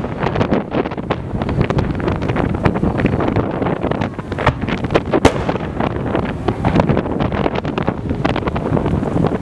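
Fireworks display: a dense barrage of overlapping bangs and crackles over a continuous rumble, with sharper reports about four and a half and five seconds in.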